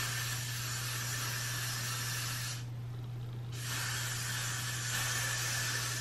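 Aerosol can of Got2b Glued hair spray hissing in two long sprays, the first lasting about two and a half seconds and the second starting after a pause of about a second. The spray is being applied to a wig cap to glue it down flat.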